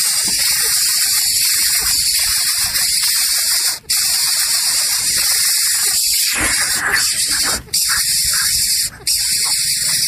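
Loud, steady hissing noise, broken by three brief dropouts.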